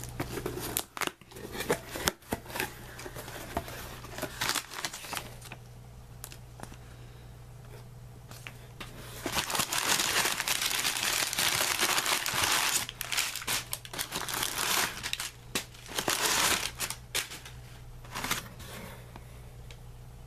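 Cardboard shipping box handled and opened by hand, with short scrapes and rips over the first few seconds. Brown kraft packing paper is then crumpled and rustled, loudest for several seconds from about nine seconds in and again in shorter bursts.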